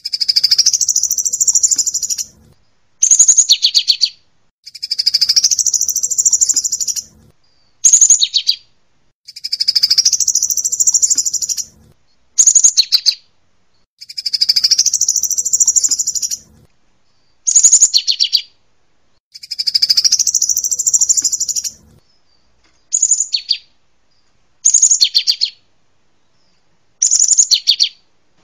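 Canary song mixed with cinereous tit and sunbird song, as a bird-song training recording. A high, fast-trilled phrase about two seconds long comes back about every five seconds, with short sharp bursts between; near the end only the short bursts are heard.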